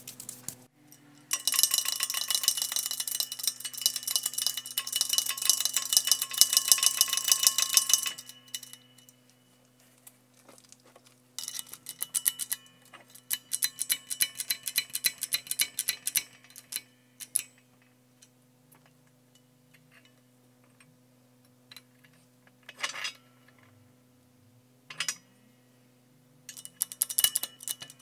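Long runs of rapid, sharp metallic clicking and ticking. One run lasts several seconds, a second comes after a short pause, then come scattered clicks and short clusters, with another run near the end. A faint steady hum sits underneath.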